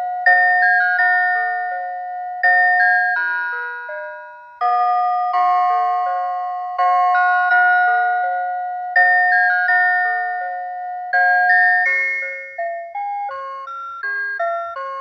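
CITIZEN Moulin alarm clock (made by Rhythm) playing one of its built-in electronic alarm melodies: a slow tune of bell-like notes, each phrase struck and then fading.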